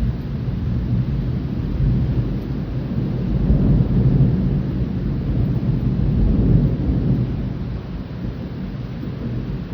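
Rolling thunder rumbling deep and long, swelling in the middle and easing near the end, over a steady hiss of rain.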